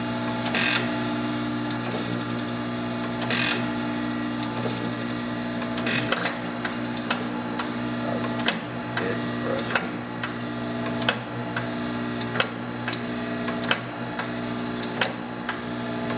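Mitsui MSG-250H-2AH hydraulic surface grinder running with its spindle and hydraulic table feed, a steady hum with sharp clicks as the table reciprocates and the automatic crossfeed steps. The clicks come every two or three seconds at first and faster, about every second and a half, from about halfway on.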